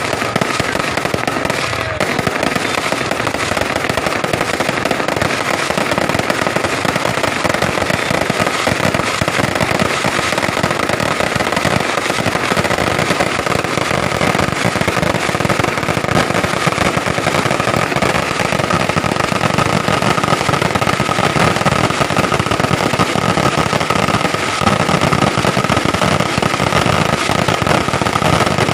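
Fireworks and firecrackers going off in a continuous rapid crackle, with no break.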